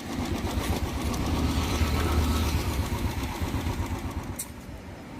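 A motor vehicle's engine running with a low rumble, growing louder to about two seconds in and then fading away.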